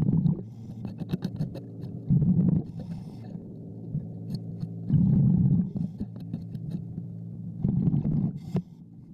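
Underwater scraping of barnacles off a propeller shaft strut with a hand scraper: scattered sharp clicks and scrapes, with a diver's breathing bubbles swelling up four times over a steady low hum.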